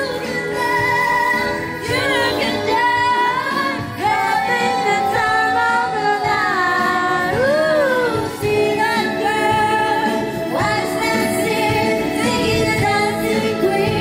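Pop music with a woman singing, the melody gliding and holding notes without a break.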